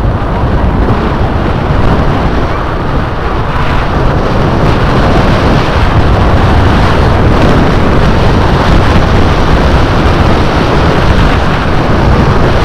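Steady, loud wind rushing and buffeting over the microphone of a fast-moving vehicle, with vehicle and road noise beneath.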